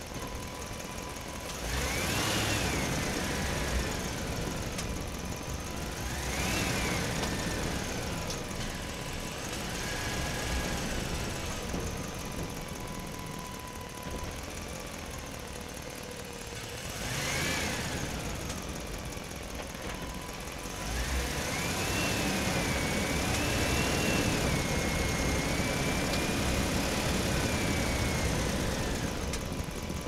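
Truck engine running while manoeuvring slowly, its pitch rising and falling four times as it speeds up and eases off, then held higher for about eight seconds before dropping back near the end. A faint steady high tone runs underneath.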